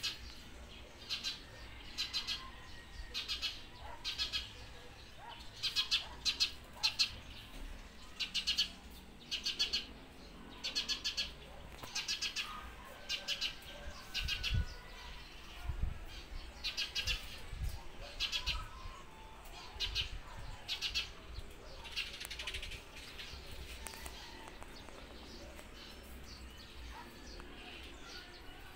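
A bird chirping over and over: short, high, trilled chirps at roughly one a second, which stop some six seconds before the end.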